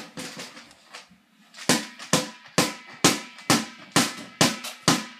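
A stick beating on an inflated exercise ball like a drum, each blow a sharp, ringing thwack. The first hits are weak; after a short pause about a second in, they come strong and even, about two a second.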